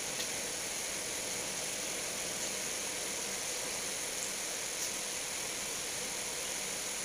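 Steady hiss of background noise at an even level, with a faint tick or two.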